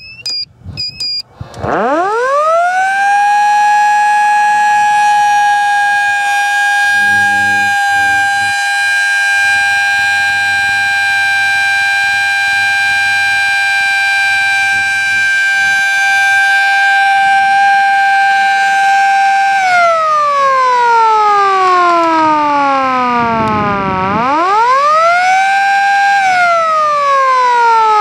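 Edwards Model F electromechanical fire siren spinning up quickly to a loud, steady wail and holding it. About 20 seconds in, the pitch falls away as it winds down, then briefly rises and falls again near the end.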